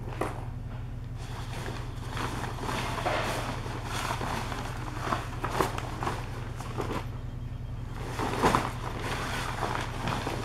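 A tent rain fly being dragged, flapped and shaken out across a concrete floor: the fabric rustles and swishes in irregular bursts, with footsteps, over a steady low hum.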